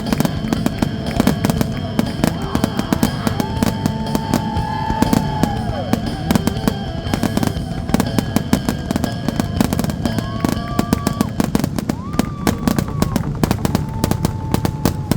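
Fireworks crackling, with many rapid sharp pops throughout, and a few held whistling tones of a second or two each.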